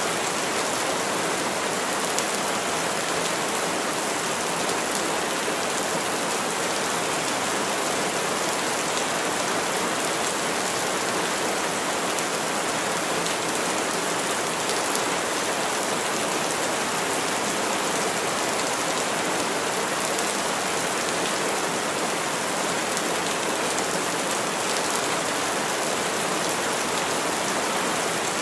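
Heavy rain falling steadily through tall forest trees: an even, unbroken hiss.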